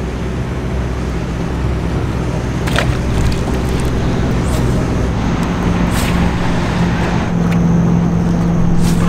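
Boat motor running with a steady low hum; a higher tone in the hum grows stronger about five to six seconds in. A few sharp clicks come through it.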